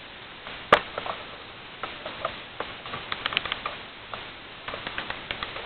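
Irregular clicks and light knocks from an old wind-up alarm clock being handled, with one sharper click about three-quarters of a second in and quicker runs of clicks later on.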